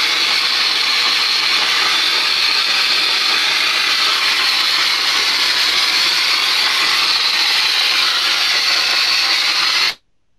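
Dry-ice blasting gun firing carbon dioxide pellets on compressed air to clean a façade ornament: a loud, steady hiss that cuts off suddenly near the end.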